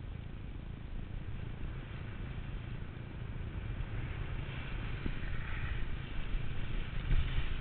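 Wind rumbling over the camera microphone and a steady hiss of sliding over packed snow, getting louder about halfway through as the descent picks up speed.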